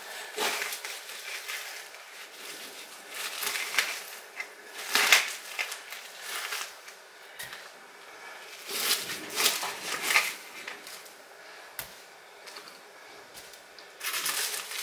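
Knife cutting partly frozen raw chicken into strips, a string of irregular short scraping cuts and sharp taps, with pieces dropped into a ceramic slow-cooker crock.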